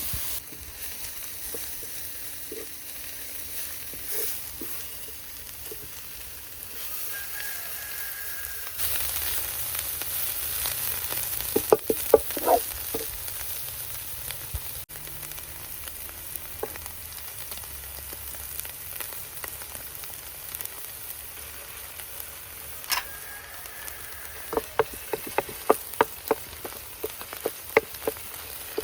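Food sizzling as it fries in a pan. A utensil clinks and scrapes against the pan in a short burst about twelve seconds in, and again in a run of quick clicks over the last few seconds.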